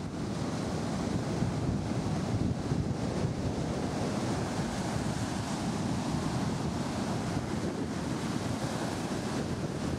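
Wind buffeting the camera microphone over the steady wash of surf on a sandy beach.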